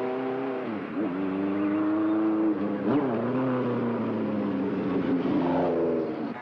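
Motorcycle engine accelerating as it approaches and passes. Its note breaks and climbs again twice, about one and three seconds in, as it shifts gears.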